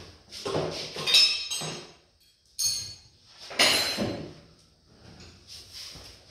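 Metal clanking and clinking in a workshop: a run of sharp knocks with a metallic ring, loudest about a second in and again near four seconds, from tools or parts being handled.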